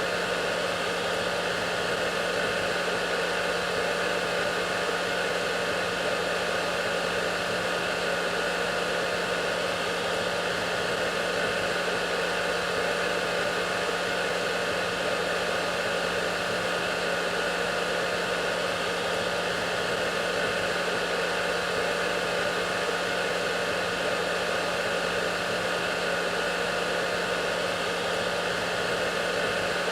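Hair dryer running steadily: an unchanging blowing hiss with a low motor hum.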